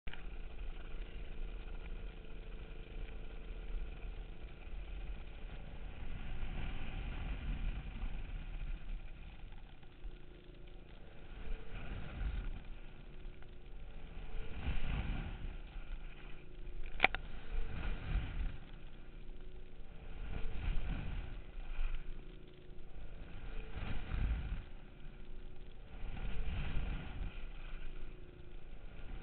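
Tow boat's engine running steadily at speed. Over it, rushing water and wind swell about every three seconds as the slalom ski cuts back and forth. A single sharp click comes about halfway through.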